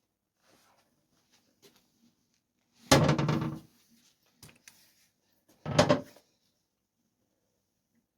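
Two clunks about three seconds apart as the motorcycle's rear wheel with its spacers is knocked into place in the swingarm.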